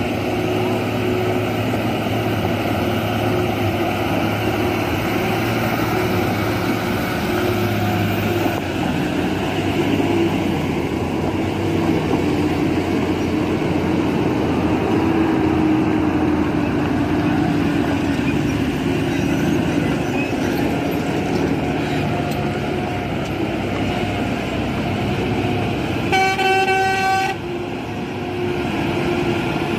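Heavy lorries' diesel engines pulling round a hairpin bend, a continuous drone whose pitch rises and falls slowly. About 26 seconds in, a horn sounds once for just over a second.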